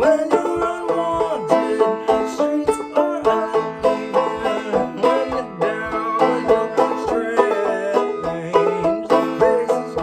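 Five-string banjo played clawhammer style in A minor tuning: a steady rhythm of plucked melody notes and brushed strums.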